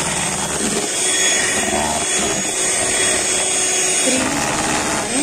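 Electric mixer running steadily, its beaters whipping eggs in a bowl into a froth: a continuous whirr with a thin high whine.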